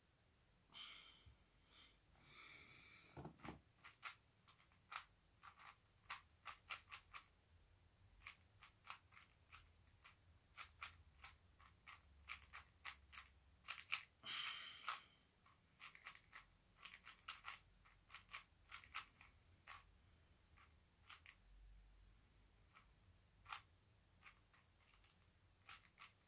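A 4x4 puzzle cube being turned by hand, its layers clicking one turn at a time in faint, separate clicks at an uneven pace while it is scrambled, with a few soft rustles of hands on the cube.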